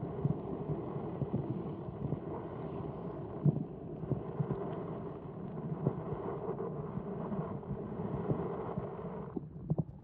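Muffled sloshing and swirling of seawater with scattered dull knocks, heard through a camera held underwater in shallow water. The sound turns duller about nine seconds in.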